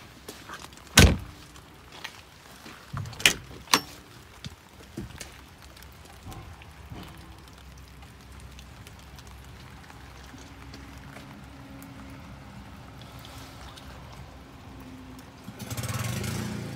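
Cab door of a Polaris Ranger utility vehicle being worked: a loud thunk of the door and latch about a second in, then a few sharper knocks around three to four seconds, over a light patter of rain. A louder rush of noise starts near the end.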